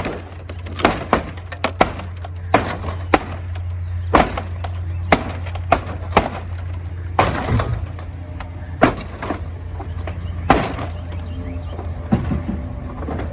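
Hammer blows striking and breaking old material in house demolition work, landing irregularly about one or two a second, over a steady low hum.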